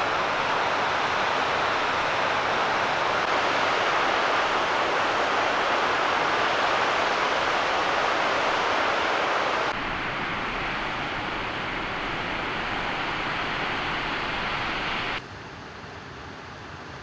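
Steady rushing roar of a cascading mountain waterfall. The rush drops abruptly to a quieter level about ten seconds in, and again about fifteen seconds in.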